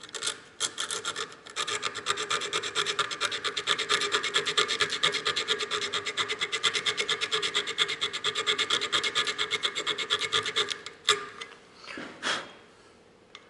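Abrasive paper rubbed rapidly back and forth between the contact points of an electric car horn, cleaning the contacts, a fast even scraping rhythm. It stops about eleven seconds in, followed by a click and a couple of short scrapes.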